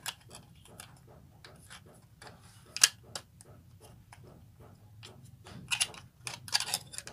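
Plastic clicks and small knocks from the housing of a cordless pet grooming clipper as its battery cover is worked back into place over the battery. There is one sharp click about three seconds in and a quick run of louder clicks near the end.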